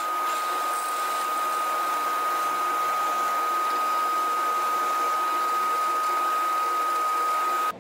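Drill press running with a Forstner bit boring into stacked wooden blanks: a constant motor whine over the steady cutting noise. It stops suddenly near the end.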